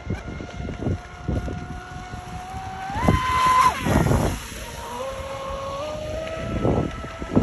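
Pro Boat Sonic Wake 36 radio-controlled boat running at speed, its brushless electric motor whining. The whine climbs sharply to a high pitch about three seconds in, falls away, then climbs again later as the boat turns. Wind buffets the microphone in gusts.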